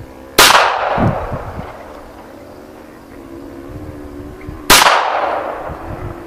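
Two shots from a Walther P22 .22 pistol, about four seconds apart, each sharp crack trailing off in a long echo.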